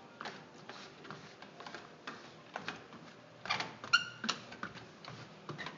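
Footsteps going down a wooden spiral staircase, irregular knocks about two a second, with one short squeak about four seconds in.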